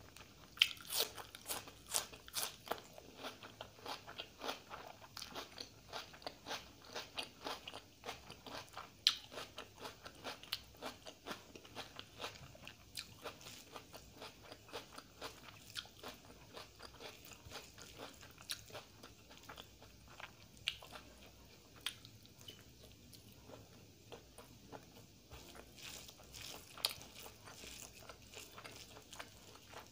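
Close-miked eating sounds: a rapid patter of small wet clicks and crackles from fingers mixing rice with chicken curry on a steel plate, along with chewing. The clicks are densest in the first dozen seconds, thin out in the middle and pick up again near the end.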